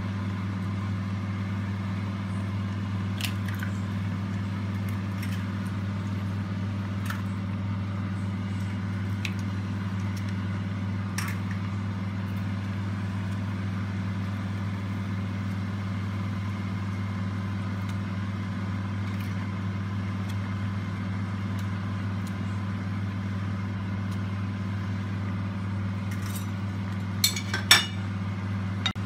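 A pot of soup boiling hard under a steady low hum. A few faint clicks come through it, and a short cluster of clinks comes near the end, as slices of toast are laid on the soup.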